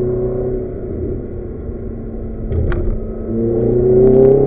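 Ferrari sports car engine heard from inside the cabin on a track lap: it runs at a steady pitch, then the revs climb strongly under acceleration in the last second or so. A single sharp click comes a little before the climb.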